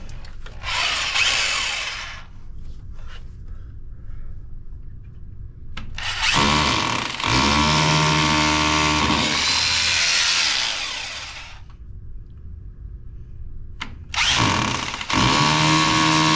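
Hammer drill with a small masonry bit drilling a pilot hole in three runs: a short burst about a second in, a longer run from about six to twelve seconds in whose whine rises in pitch as the motor spins up, and another run starting near the end.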